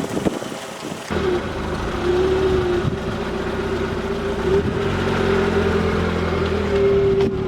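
Car engine running at low speed: a steady low rumble with a mid-pitched whine above it. It starts abruptly about a second in, after a short windy, rustling stretch.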